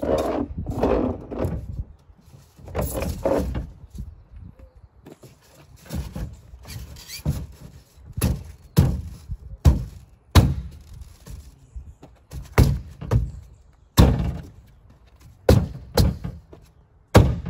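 Nudura ICF foam blocks being fitted: the foam panels scrape and rub against each other as a block is set in place, then about a dozen sharp thunks in the second half as the block is knocked down by hand onto the interlocking teeth of the course below.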